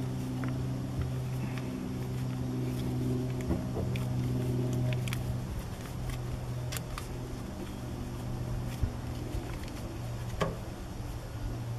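Scattered light clicks and taps as a direct-vent heater's vent pipe is handled and fitted into its opening in a log wall, over a steady low motor hum.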